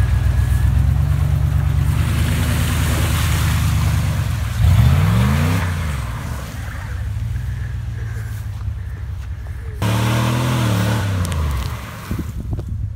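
Dodge Ram 1500 pickup's V8 running at low speed through mud, then revving hard about four and a half seconds in, its pitch rising as the spinning tyres fling mud. It revs up again about ten seconds in, then sounds fainter as the truck pulls away.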